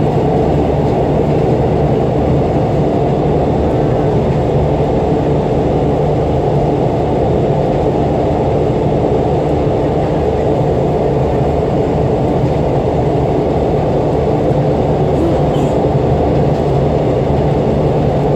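Korail RDC diesel railcar running steadily along the line, heard from inside the passenger cabin: a constant low drone of engine and wheel-on-rail running noise.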